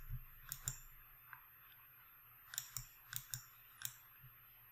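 Computer mouse clicking: about nine faint, sharp clicks scattered irregularly, several in quick pairs as a button is pressed and released.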